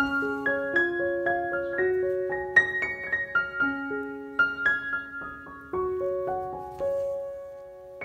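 Background piano music: a gentle melody of quick single notes over lower held notes.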